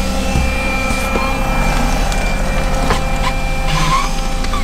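Handheld battery window vacuum whirring steadily as it is run over the inside of the fogged windscreen, sucking up condensation, with a few short slurps around three and four seconds in. A car engine idles underneath.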